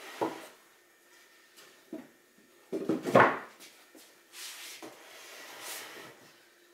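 A wooden Warre hive quilt box being set onto the hive boxes and worked into place by hand: a few wooden knocks, the loudest cluster about three seconds in, then wood scraping against wood as it is shifted to sit square.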